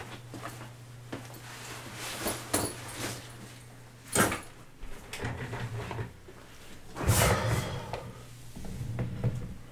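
A person moving about a small room: scattered knocks and door or drawer handling sounds, a sharp knock about four seconds in, and louder scuffling about seven seconds in and again near the end, over a low steady hum.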